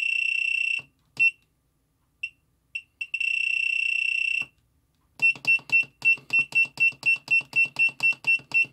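Sealody SSA60 soldering station's button beeper: a long beep, a few single short beeps, a second long beep, then from about five seconds in a rapid run of short beeps, about four a second, as a held key steps the temperature setting down.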